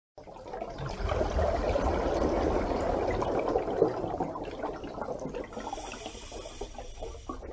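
Water bubbling and gurgling in a dense, even rush, loudest in the first few seconds and easing off after about four seconds. A faint high tone joins near the end.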